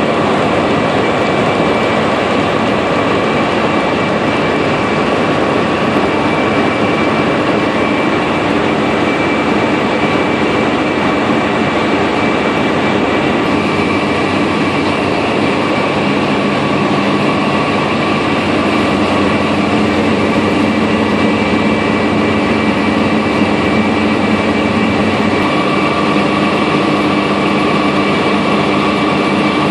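ZJ50 land drilling rig's machinery running: a loud, steady mechanical noise with several steady whining tones over it.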